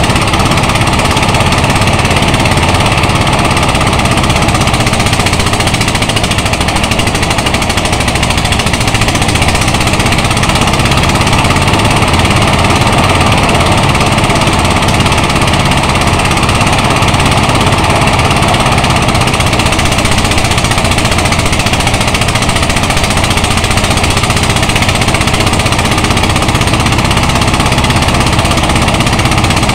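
Engine-driven rice thresher running steadily while bundles of rice stalks are fed into its drum; a loud, continuous machine noise that stays even throughout.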